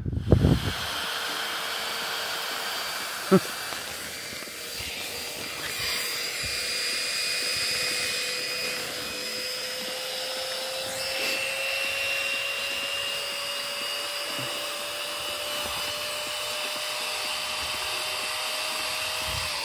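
Small battery-powered air pump whirring steadily as it inflates a sleeping mat through the mat's valve, its pitch creeping slowly upward. A single sharp click about three seconds in.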